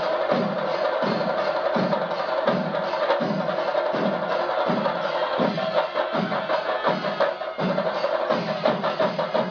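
Drum-led music: fast percussion with a heavier beat about twice a second over a steady held tone.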